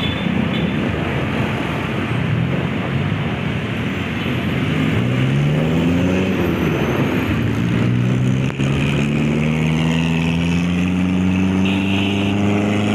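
Motorbike engine running in traffic with steady road and wind noise. The engine pitch rises as it speeds up about five seconds in, and again more slowly from about eight seconds on.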